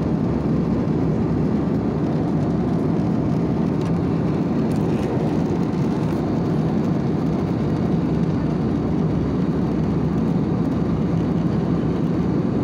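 Airliner cabin noise in cruise flight: the steady, low rumble of engines and rushing air heard from inside the cabin, even and unchanging.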